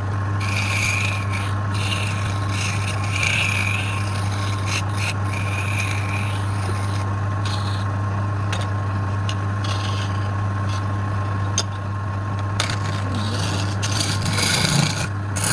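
Wood lathe running with a steady low hum while a turning tool scrapes at the spinning wood in irregular short passes.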